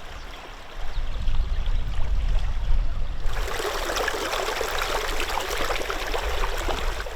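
River water running over stones, with a low rumble underneath. About three seconds in, the rushing and splashing grows louder and brighter, as if closer to the rapids.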